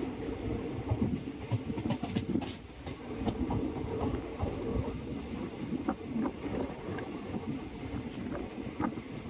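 A moving passenger train heard from inside the coach: a steady running rumble of wheels on the track, with scattered metallic clicks and knocks.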